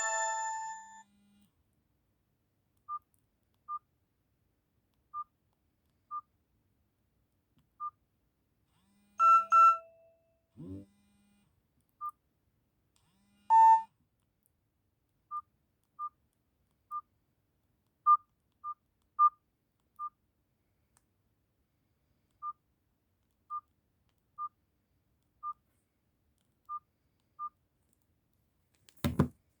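Nokia 225 mobile phone: a ringtone stops in the first second, then short single-pitch keypad beeps sound at irregular intervals, with two brief louder tones about a third and halfway through and a sharp click near the end.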